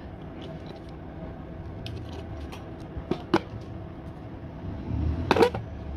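A few sharp clicks over a steady low hum: two clicks about three seconds in, then a louder quick run of clicks near the end.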